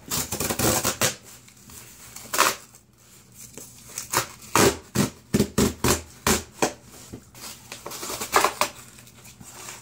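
A cardboard shipping box being opened by hand: a run of short tearing, scraping and rustling noises from the cardboard and its packing, coming thick and fast in the middle.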